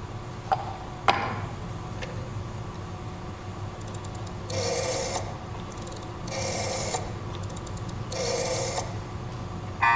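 Telephone sound effect: a couple of sharp clicks near the start, then three short whirring stretches like a rotary dial being turned and running back, with faint clicking between them. A loud buzzing line tone cuts in at the very end.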